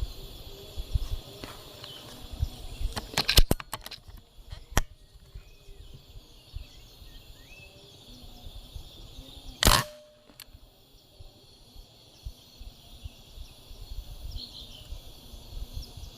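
A Benjamin Marauder PCP air rifle: a quick run of sharp clicks about three and a half seconds in, then a single sharp report near ten seconds in as it is fired at a squirrel, over a steady forest background of insects buzzing.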